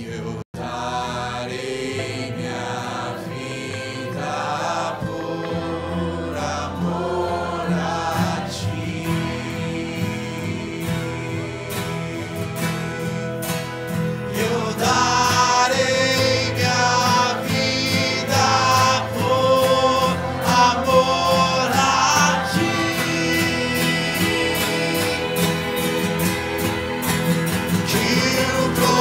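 Acoustic steel-string guitar strummed under a male lead vocal with backing voices singing a slow worship song, growing fuller and louder in the second half. There is a brief dropout about half a second in.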